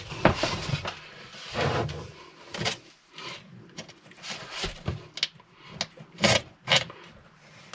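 A long drill bit being pulled by hand back through a hole drilled in a wooden wall, drawing an electrical wire through with it: a run of irregular scraping strokes of steel against wood, with several sharp clicks.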